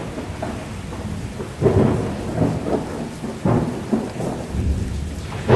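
Storm sound effect: steady rain with rolling thunder that swells several times.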